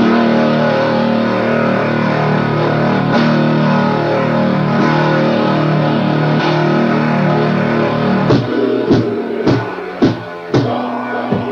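Lo-fi demo-tape recording of doom/black metal: distorted electric guitar holding slow chords, then from about eight seconds in a string of separate heavy accented hits with drums, roughly one every half second or so.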